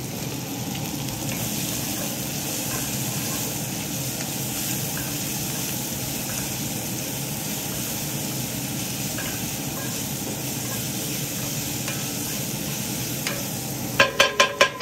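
Strips of onion and jalapeño, red and green peppers sizzling in oil in a Finex cast iron skillet as a wooden spatula stirs them: a steady frying sizzle. Near the end come four quick, loud knocks that ring.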